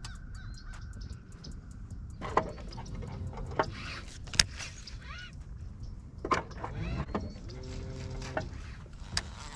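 Outdoor ambience: a few sharp clicks, several short chirping bird calls, and a held call lasting about a second near the end.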